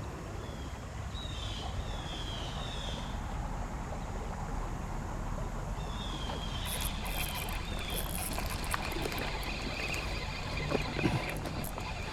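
Steady outdoor noise of river water and wind on the microphone, with two short runs of high, falling chirps about a second in and again around six seconds in.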